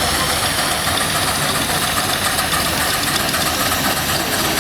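Steam traction engine running: a steady hiss with a faint, quick regular beat.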